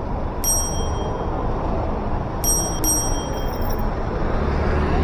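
Three short electronic dings from a subscribe-button animation sound effect: one about half a second in, then two close together about two and a half seconds in. Steady street traffic noise runs underneath.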